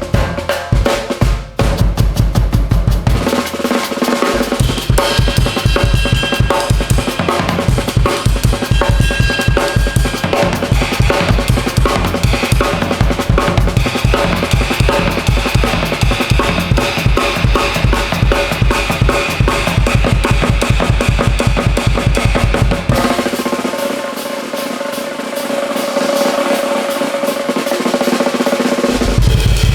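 Drum kit played fast in a solo: dense, rapid strokes over a driving bass drum. About 23 seconds in the bass drum drops out while fast rolls carry on around the rest of the kit, and it comes back in near the end.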